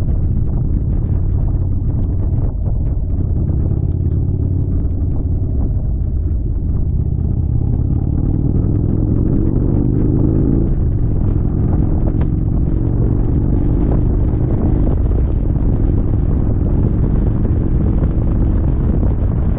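Indian Chieftain motorcycle's V-twin engine running under way, with a heavy low rumble. The engine note climbs as it accelerates about eight seconds in, drops suddenly at an upshift just past halfway, then holds steady.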